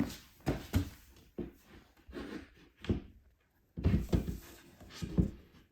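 Irregular wooden knocks and bumps of IKEA Kullen flat-pack chest-of-drawers panels being handled and pushed together during assembly, with a cluster of louder knocks about four seconds in.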